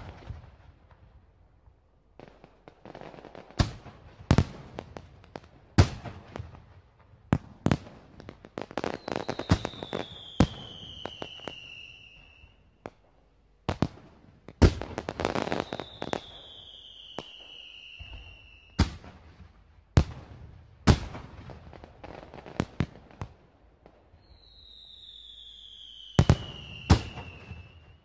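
Fireworks going off: irregular sharp bangs with crackling between them, and three long whistles falling in pitch.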